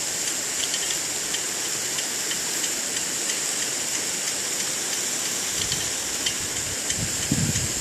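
Rain-gun sprinkler spraying water over a pond: a steady hiss of spray with faint pattering of drops on the water.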